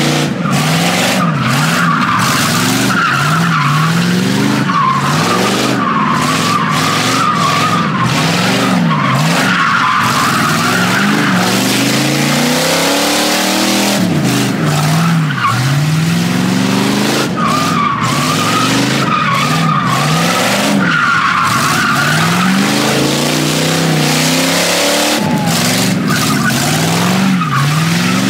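Fox-body Ford Mustang convertible doing donuts: the engine revs up and down again and again as the rear tyres spin and squeal on the asphalt, the squeal breaking off and coming back every few seconds.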